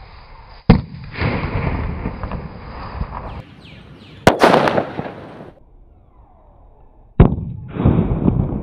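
Three sharp bangs: about a second in, near the middle, and about a second before the end. They are small plastic bottles bursting under acetylene gas pressure, made by calcium carbide reacting with water. Each bang is followed by a second or two of noisy tail.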